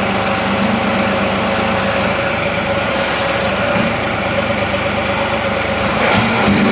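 John Deere compact tractor's diesel engine running steadily at about 1,000 RPM idle, driving a newly fitted higher-flow hydraulic pump that is primed and working the loader. A brief high hiss comes about three seconds in.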